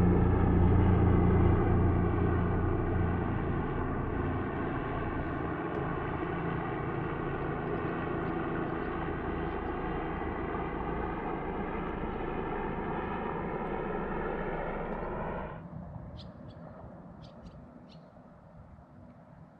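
An engine's drone with many overtones, sinking slowly in pitch as it passes. It drops off sharply to a faint hum about three-quarters of the way through, with a few light clicks after.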